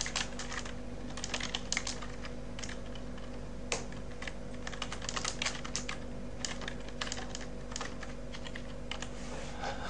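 Typing on a computer keyboard: irregular key clicks in short runs as a file name is typed.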